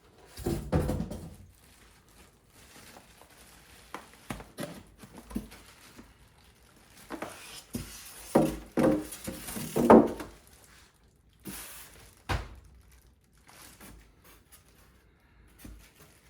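Unboxing handling noise: scattered thunks, knocks and rustling as the NZXT H9 Flow PC case and its packaging are moved about, with a few louder clusters about half a second in and again around the middle.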